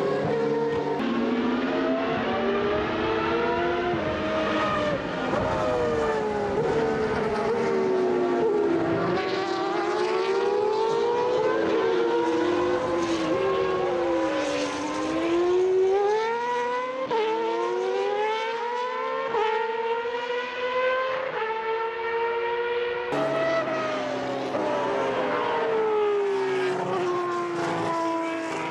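Superleague Formula Panoz DP09B race cars' 4.2-litre V12 engines at high revs, more than one car at a time, the pitch rising and falling through quick gear changes as they accelerate, brake and pass by.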